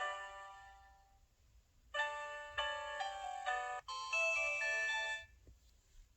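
SK-900 mobile phone's missed-call alert tone: the tail of one chime fades out, then about two seconds in a short electronic melody of chord-like notes plays for about three seconds and stops.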